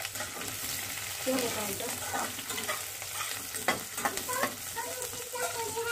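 Sliced onions sizzling as they fry in hot oil in a steel kadhai, stirred with a metal spatula that scrapes and clicks against the pan.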